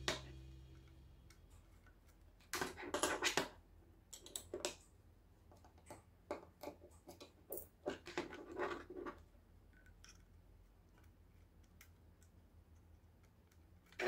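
Faint clicks and scrapes of a Logitech G302 mouse's plastic housing being handled and pried apart, in scattered clusters of small taps.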